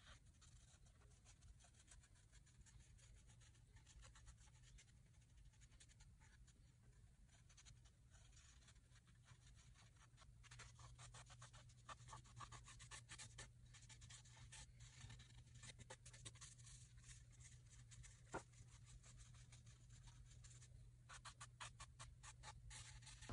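Faint scratchy rubbing of a foam brush dabbing and wiping water-based stain into a scorched wooden board, in quick short strokes. The strokes come in clusters in the second half, with one small tap partway through; the first part is near silence.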